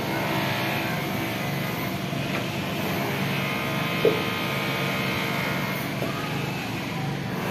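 A motor running steadily, a hum made of many even tones, with a short sharp sound about four seconds in.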